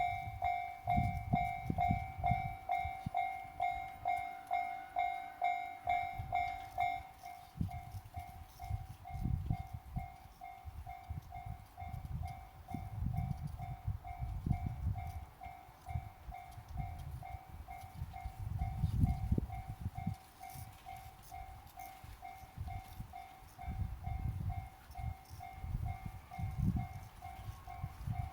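Railway level-crossing alarm ringing its repeating electronic ding, about two strokes a second. It is loudest for the first seven seconds and carries on more faintly after that. Under it a train passes with a low rumble from its wheels that swells and fades.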